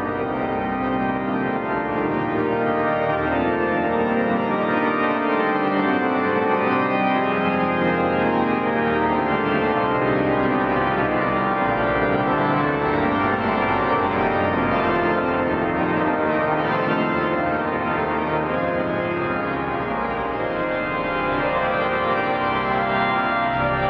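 Organ playing slow, sustained chords, with full held notes changing gradually.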